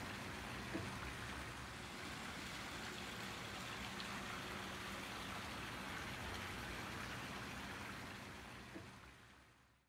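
Steady outdoor background noise, an even hiss with a faint low hum underneath and a small click about a second in and another near the end; it fades out over the last second.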